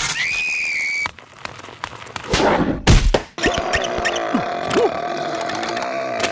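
Cartoon sound effects and character noises: a high-pitched squeal held for about a second, then loud thumps about three seconds in. After the thumps comes a steady hum with small squeaks and ticks.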